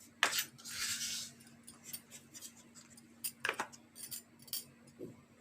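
A spoon clinking and tapping against bowls and containers a few times as spices and salt are spooned into a mixing bowl, with a short rustle about a second in.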